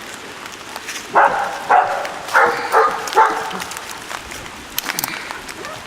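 Kennel dogs barking, a run of about six short barks in the first half, then quieter. The owner puts the barking down to a female in the kennel being in heat.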